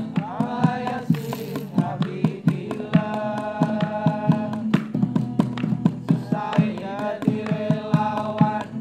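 Men singing together to acoustic guitar, with quick, frequent strikes on a plastic container played as a hand drum.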